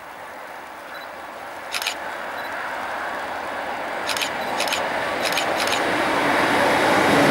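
Electric-hauled passenger train approaching on the main line, its rumble rising steadily as it nears and loudest at the end. A few short sharp clicks come through on top, about a second apart in the second half.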